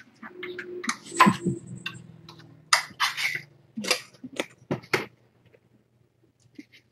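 Objects being handled: a run of sharp clicks and knocks, with two short scraping sounds about three seconds in, dying away near the end.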